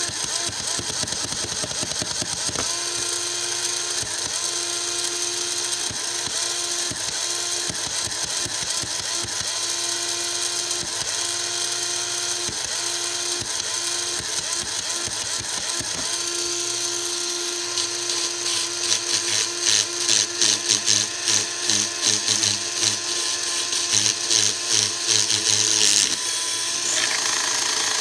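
Lego Technic electric motor and gear train of a homemade Lego 'synthesizer' running with a steady whir and a whining tone that keeps breaking off and coming back. From past the middle it turns into a louder rhythmic pulsing, about two pulses a second, which cuts off suddenly two seconds before the end.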